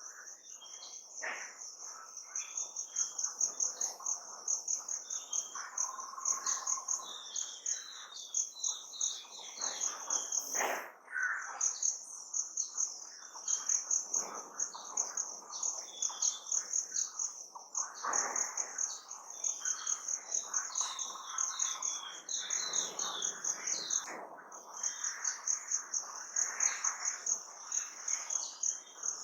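A high-pitched insect, cricket-like, trilling in a fast pulsing rhythm without pause, with small birds chirping repeatedly over it and a few louder, lower calls in between.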